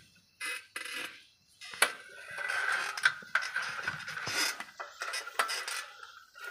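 Bicycle being ridden along a rough, overgrown path, with irregular scraping and rattling as it brushes through thorny undergrowth and a sharp knock about two seconds in.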